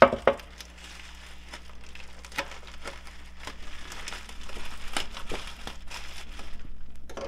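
Plastic bubble wrap crinkling and tearing as a folding pocket knife slits the wrapping open, with a dense crackle that swells in the middle. Two sharp clicks come right at the start.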